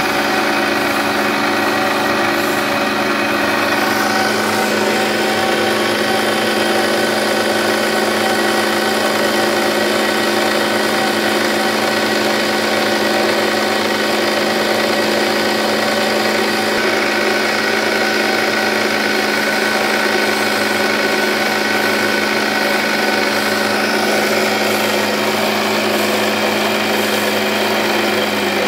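Electric motor of a woodworking machine running steadily: a constant hum with several fixed tones, without distinct cutting strokes.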